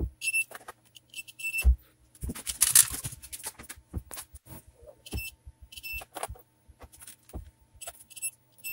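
Continuity beeper of a VA21 digital multimeter giving a series of short high beeps as the test probes touch the TV main-board fuses one after another. Each beep shows that the fuse conducts and is intact. Probe tips click against the board between the beeps.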